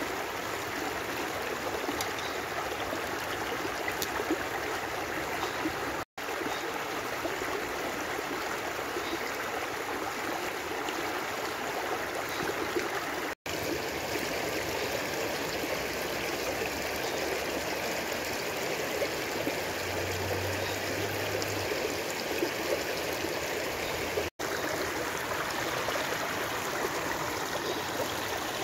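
Shallow rocky stream rushing steadily over stones and small rapids, cut by three momentary gaps where the sound drops out.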